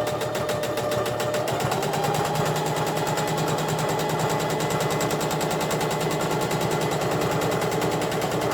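Electric sewing machine running steadily, stitching a row through stretched elastic in a pajama waistband, its motor speeding up slightly about a second and a half in.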